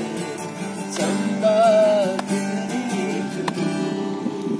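Acoustic guitar music with strummed chords, and a brief wavering sung or whistled note about a second and a half in.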